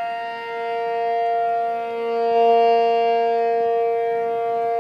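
Outdoor civil-defense tornado siren wailing at a steady pitch, its loudness swelling and fading slowly, sounding a tornado warning.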